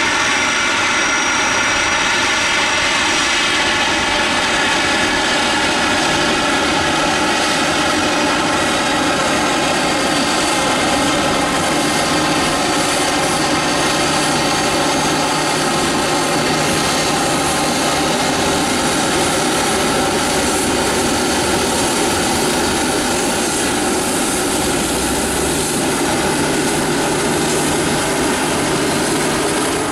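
Boeing 737-300's twin CFM56-3 turbofan engines running at taxi power: a steady jet whine of several high tones over a hiss.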